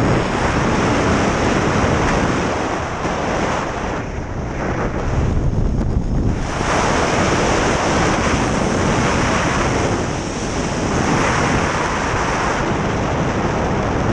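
Wind rushing and buffeting over the microphone during a tandem parachute descent under an open canopy: a loud, steady rush that eases briefly twice a few seconds in.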